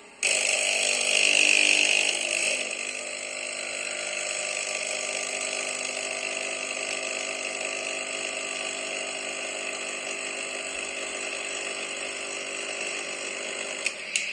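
Java Amps 3-in-1 coffee machine brewing a capsule coffee: its pump starts abruptly with a steady mechanical hum, loudest for the first two seconds, then runs evenly, with two clicks near the end.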